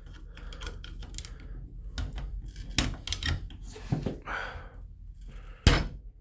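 Metal tool clicking and scraping against the lock's internal mechanism through the hole left by the removed cylinder, with a brief scrape about four seconds in and one sharp, loud metallic click near the end.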